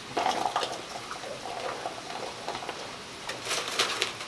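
Water boiling in a stockpot as king crab legs are put into it, with a few sharp clicks near the end.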